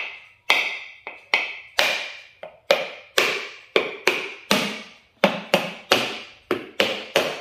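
Back of a kitchen knife knocking repeatedly on a whole brown coconut shell, about two to three blows a second, each with a short ring. The shell has not yet cracked: these are the tapping blows, struck in one direction while the coconut is turned, that will split it around the middle.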